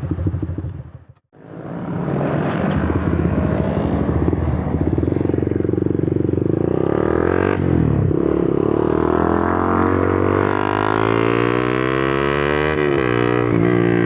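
Motorcycle engines running, several engine notes overlapping, their pitch gliding up and down. The sound drops out briefly about a second in.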